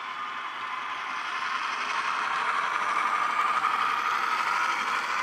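Model V/Line P Class diesel locomotive's DCC sound decoder playing a diesel engine sound through a small 22x13x6mm bass-enhanced speaker, with almost no deep bass. It grows louder as the loco comes past, loudest about three to four seconds in.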